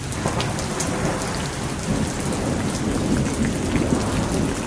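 Steady heavy rain pattering on a surface, with a low rumble of thunder underneath that builds slightly.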